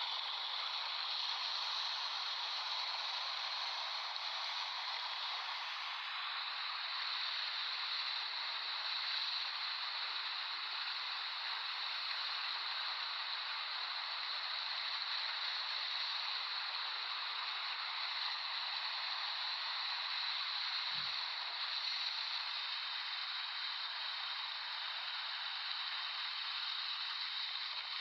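Ocean surf washing on a beach: a steady hiss of breaking waves and foam, without distinct surges, and a brief low thump about three quarters of the way through.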